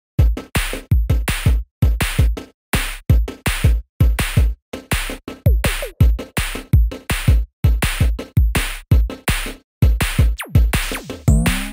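Electronic background music with a heavy, steady drum-machine beat and a strong bass.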